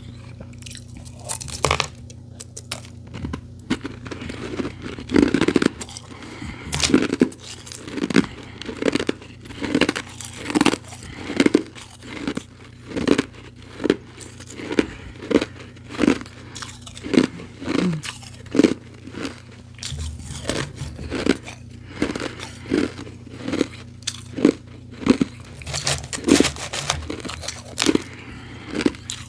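Refrozen powdery ice being chewed: a steady rhythm of crisp crunches, a little more than one a second.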